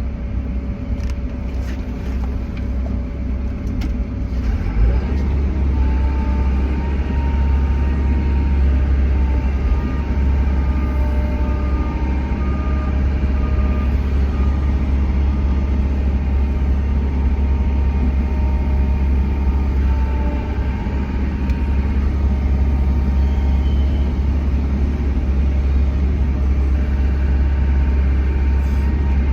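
Diesel engine of a Bobcat E145 compact excavator running steadily under load while loading topsoil, a deep rumble that gets louder about five seconds in.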